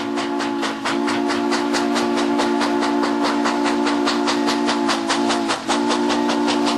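Frisco 1522, a 4-8-2 steam locomotive, running by at speed. Its whistle sounds a long, steady chord that breaks off briefly just under a second in and again near the end, over rapid, even exhaust chuffs.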